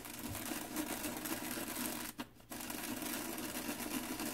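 Sesame seeds shaken out of a plastic shaker bottle onto a pan of noodles: a fast, continuous rattle, with a brief pause a little over two seconds in.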